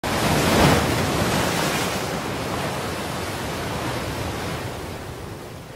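Ocean surf: a wave breaking and washing in, loudest about half a second in, then a steady rushing wash that slowly fades.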